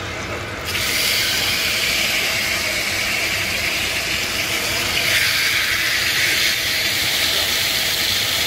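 Raw pork chops sizzling as they are laid into a hot oiled frying pan. The hiss starts suddenly about a second in as the first chop hits the pan and grows louder about five seconds in as the second one goes in.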